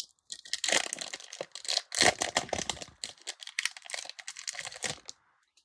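Foil wrapper of a Pokémon trading card booster pack crinkling and tearing as it is opened, in a dense run of crackles that stops shortly before the end.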